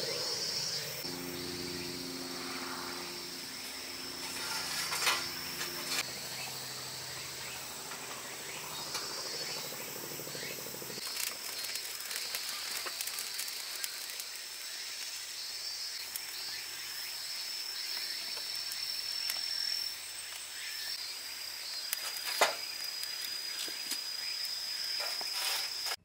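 Small campfire of wood and dry chestnut burrs burning, with a sharp pop about five seconds in and another near the end, over a steady high trill of insects. A faint low drone stops about eleven seconds in.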